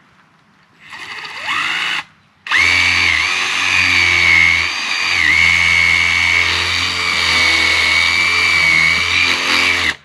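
Power drill boring a hole into a tree: a short spin-up about a second in, then a long steady high whine from about two and a half seconds, its pitch dipping briefly twice as the bit bites, until it stops near the end.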